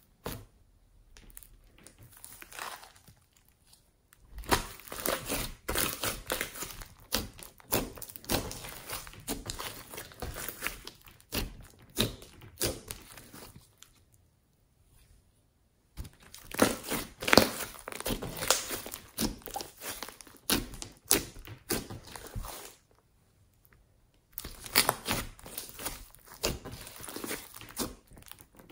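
Hands squeezing, stretching and pressing glossy slime mixed with foam beads (floam), giving dense runs of sticky clicks and pops. The runs come in three stretches, with brief quiet pauses about a third of the way in and again near the end.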